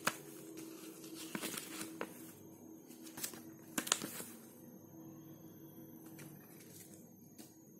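Folded paper instruction leaflet being unfolded and handled, rustling with a few sharp crackles, the loudest about four seconds in, over a faint steady hum.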